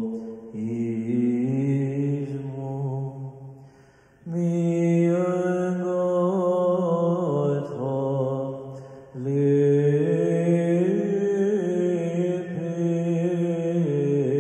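A male chanter singing Byzantine chant in long, drawn-out melismatic phrases, with a short break about four seconds in and another about nine seconds in.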